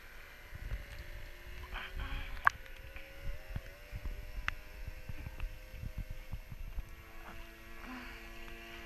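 Faint motor whine of a remote-control model lobster boat, holding steady notes that shift in pitch a few times as the throttle changes. Low thumping buffets the microphone at the water's surface, and there is a sharp click about two and a half seconds in.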